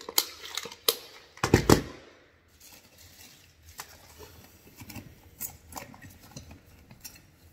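Tools and parts being handled and set down: a few sharp clicks and knocks, one heavier thump about a second and a half in, then fainter scattered clicks.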